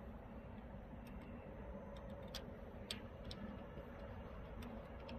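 Faint steady background hum with a handful of sharp, scattered clicks at irregular intervals.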